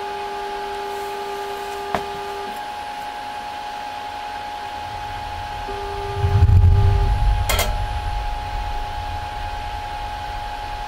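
Hitachi U-2000 spectrophotometer running a wavelength scan: a steady hum with a mid-pitched motor tone that stops about two and a half seconds in and comes back briefly around six seconds. A click about two seconds in, a low rumble swelling around six and a half seconds, the loudest part, and a sharp click a second later.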